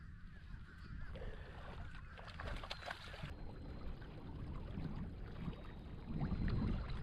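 Water lapping and splashing against a fishing kayak's hull, with wind rumbling on the microphone. A few light clicks sound in the first half, and the rumble swells louder near the end.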